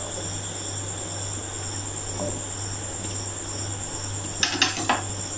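Beef broth boiling in a pot while a wooden spoon stirs it, knocking against the pot three or four times near the end as a piece of meat is lifted out. A steady high chirping tone runs over it.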